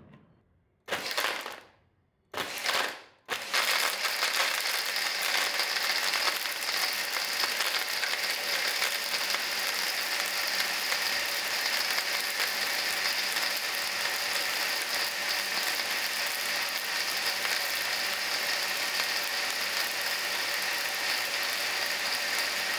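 Countertop blender pulsed twice in short bursts, then running steadily, blending dates and milk into a milkshake.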